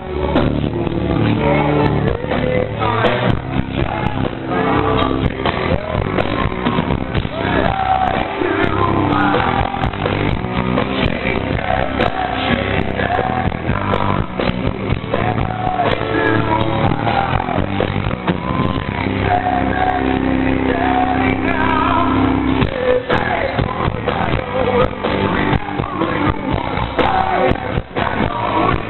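Rock band playing live with a singer, a loud full band sound recorded from within the audience on a handheld camera.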